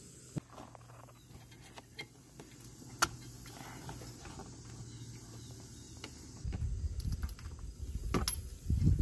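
A few sharp clicks and taps of hand tools on a Yamaha Warrior 350 ATV's engine during a spark plug change, over a low steady hum. About six and a half seconds in, an irregular low rumbling comes in and grows louder toward the end.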